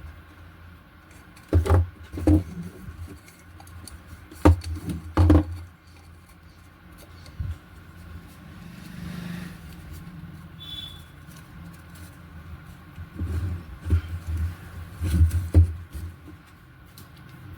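Irregular thumps and knocks from handling LED TV parts and speakers on a workbench, in two short flurries, with a faint steady background hum.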